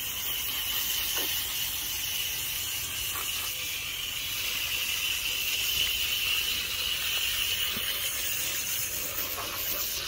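Steady hiss of a water jet from a garden-hose spray nozzle rinsing an air conditioner's evaporator coil.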